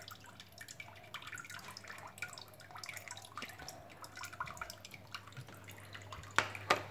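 Water dripping and trickling into a small enclosure pond, a scatter of light drips over a low steady hum. Two sharp clicks come about six and a half seconds in.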